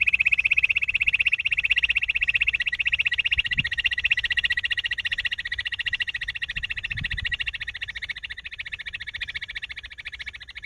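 Barred buttonquail (gundri) call: one long, very rapid purring trill held at a steady pitch, fading slowly and cutting off abruptly at the very end.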